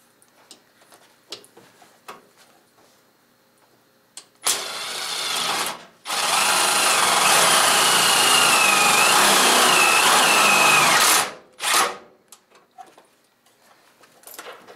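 Cordless power driver running a bolt into a bumper mounting bracket: a short burst, then a steady run of about five seconds, with light clicks and knocks of handling before it and after it.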